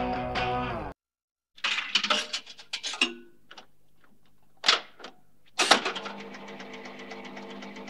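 Electric-guitar band music stops abruptly about a second in; after a short gap come scattered guitar stabs and two sharp scraping hits, then a held guitar chord with a fast even pulse.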